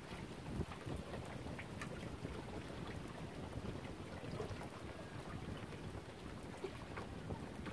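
Wind rumbling on the microphone, with lake water lapping against the shore in small, irregular splashes.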